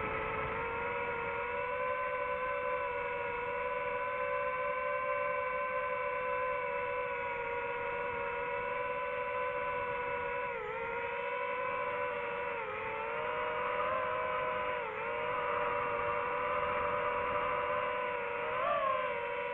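DJI FPV drone's motors and propellers whining steadily. The pitch dips briefly three times in the second half and rises sharply near the end.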